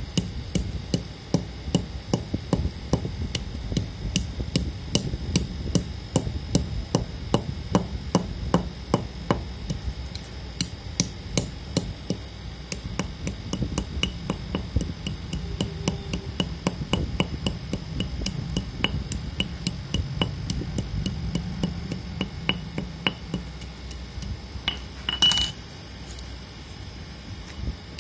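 A steel rod-shaped tool tapping repeatedly on dry lumps of multani mitti (fuller's earth) on a hard floor, cracking and crunching the clay, about three sharp strikes a second. Near the end one louder strike rings briefly.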